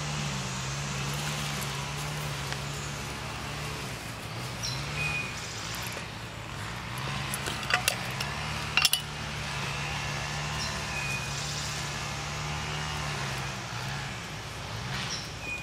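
Sharp clinks of cooking gear being handled, two quick pairs a little past halfway, over a steady low hum.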